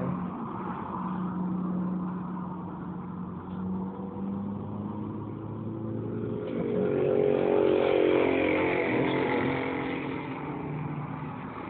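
Motor vehicle engine hum, with a louder vehicle passing that swells to its loudest about eight seconds in and then fades.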